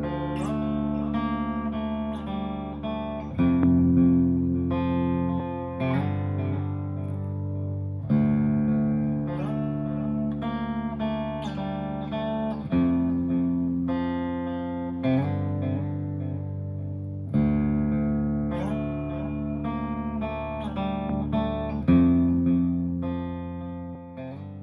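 Guitar music: picked notes over held low chords, with a fresh chord struck about every four and a half seconds, fading out at the end.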